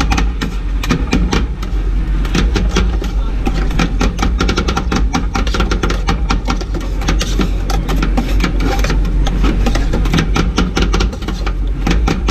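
Metal spatula chopping and scraping ice cream mix on a frozen steel cold plate: a fast, uneven run of sharp clacks, several a second, over a steady low hum.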